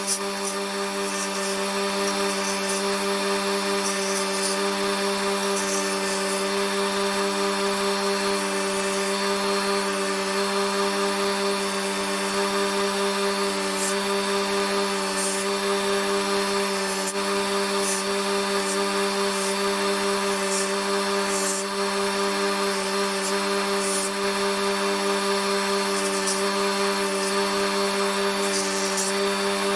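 Belt grinder running with nothing on the belt: a steady motor hum with a faint pulse about once a second, and a few light ticks.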